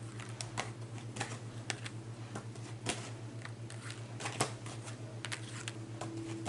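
Tarot cards being handled, a run of soft, irregular clicks and snaps, over a steady low electrical hum.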